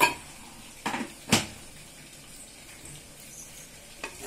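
Kitchen knocks as a steel bowl, just used to pour hot water, clanks against a clay cooking pot: a sharp knock at the start, then two or three more about one to one and a half seconds in. Near the end a wooden spatula begins to tap against the clay pot as the gravy is stirred.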